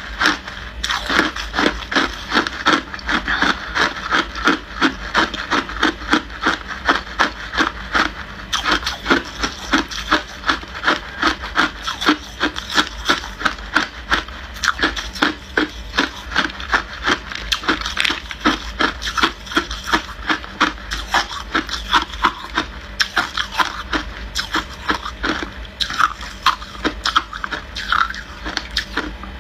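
A person chewing hard clear ice: a steady run of crisp crunches, about four a second, as the teeth break the ice up.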